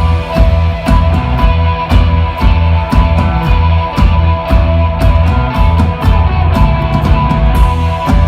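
Instrumental rock trio playing live: electric guitar holding sustained notes over bass guitar and a drum kit keeping a steady beat.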